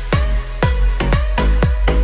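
Electronic dance music with a steady kick drum about twice a second over a deep, continuous bass.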